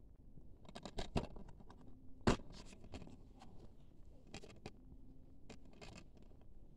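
White plastic DVD keep case being handled and opened: a series of clicks and scrapes, with one sharp snap about two seconds in, the loudest sound.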